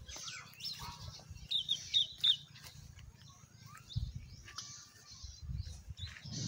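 Small birds chirping, loudest in a quick run of four high chirps about one and a half to two and a half seconds in, over a low background rumble.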